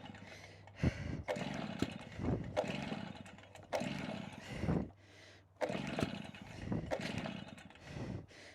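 Stihl BR380 two-stroke backpack blower being pull-started over and over, the recoil cord ripped out in quick repeated pulls about once a second while the engine turns over without catching. The owner suspects a piston or compression fault.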